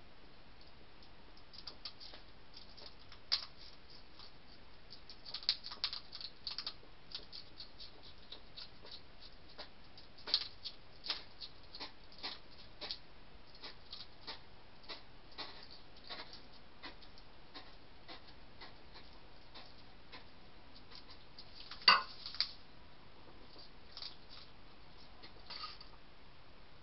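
A hedgehog eating at a feeding dish: irregular small crunching clicks as it chews dry food, with one sharper, louder click about three-quarters of the way in.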